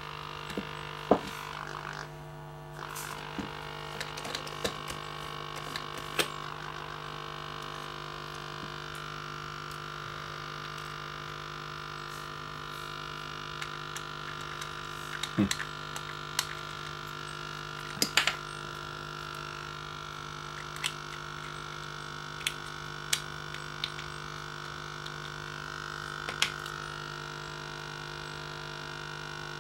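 Steady electrical hum of several pitches held together, with scattered small clicks and taps as a glue bottle and applicator are handled over the speaker on the workbench.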